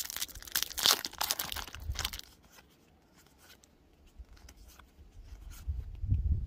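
Foil wrapper of a Pokémon trading card booster pack being torn open by hand, crinkling and crackling for about two seconds.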